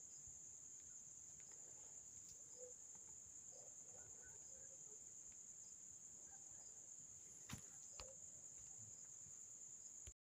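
Near silence: a faint, steady high-pitched whine over room tone, with two small clicks near the end before the sound cuts off suddenly.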